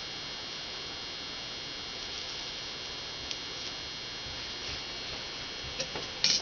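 Steady electrical hum with a thin high-pitched whine and hiss, broken by a few short sharp clicks, two close together near the end, the last one the loudest.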